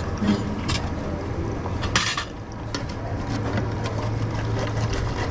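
An egg frying in hot oil in a frying pan, with a metal ladle clinking and scraping against the pan as the egg is basted; a brief louder clatter comes about two seconds in, over a steady low hum.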